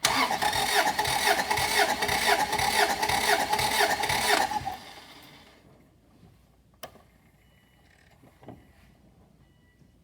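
Car engine cranked over on the starter for about four and a half seconds with a regular chugging pulse, not firing because the spark plugs are out: a compression test, cranking until the gauge reaches total compression. A sharp click follows a couple of seconds later, then a small knock.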